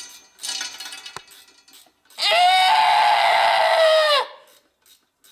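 A loud censor sound effect: one steady, high-pitched, scream-like cry about two seconds long, dropping slightly in pitch just before it cuts off, laid over a swear.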